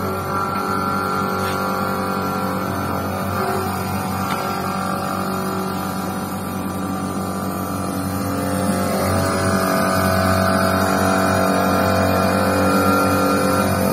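CNC milling machine (HKI 4025) running its program: the spindle turns steadily while the end mill cuts a white block, giving a steady whine made of several pitches. It grows louder about eight seconds in.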